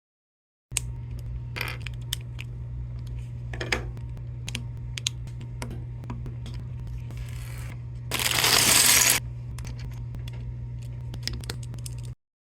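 Lego plastic bricks clicking and clattering as they are handled and snapped together: scattered sharp little clicks over a steady low hum, with a louder rush of rattling noise lasting about a second a little past the middle.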